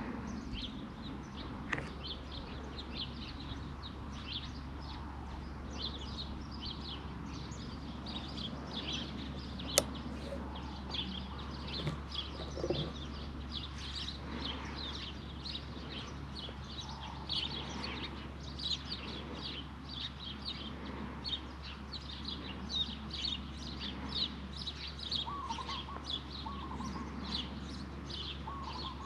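Songbirds chirping continuously, a dense stream of short, high calls over a steady low hum. A single sharp click about ten seconds in.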